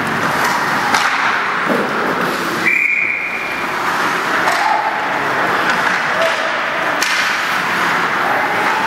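A referee's whistle blown once for about a second, roughly two and a half seconds in, over the clacks of sticks and puck and the steady hubbub of an ice hockey game.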